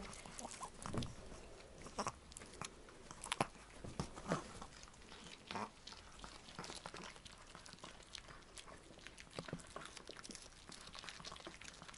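Chihuahuas chewing pieces of raw sweet bell pepper: irregular wet crunches and smacking, a few louder bites in the first half.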